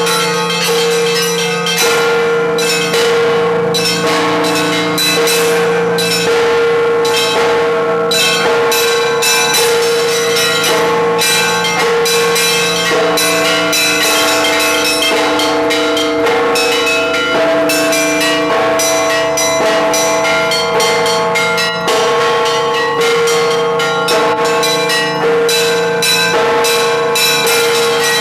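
Russian Orthodox church bells rung by hand (zvon): many bells struck in quick, dense rhythmic patterns over the long hum of the larger bells.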